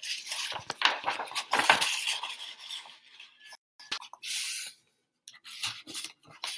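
Sheets of drawing paper rustling and sliding across a wooden tabletop as they are shuffled and repositioned by hand, in uneven bursts with short breaks.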